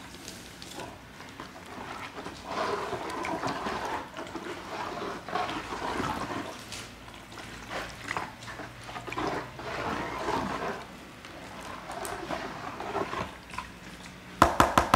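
Dye liquid sloshing and splashing in a plastic basin as it is stirred and ladled with a plastic spoon, mixing dye powder into a caustic soda solution. Near the end, a quick run of loud taps.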